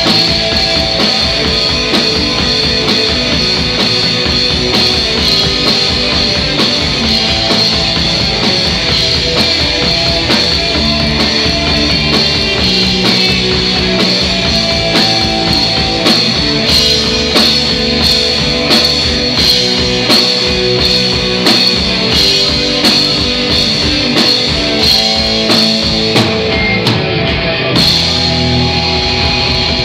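Live rock band playing loudly: electric guitars, bass guitar and drum kit. The cymbals drop out for about a second near the end, then the full band comes back in.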